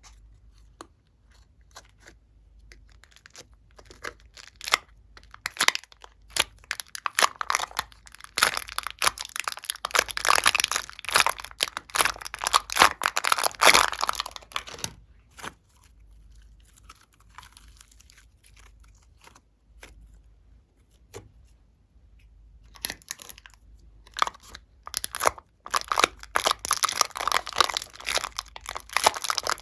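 Glossy slime being squished and stretched by hand, giving a dense run of crackling, sticky tearing pops, in two busy spells with a quieter stretch between.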